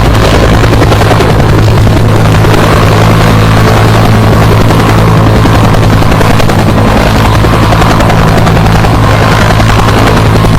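UH-1H Huey helicopter running loud and steady, its turbine engine and main rotor together.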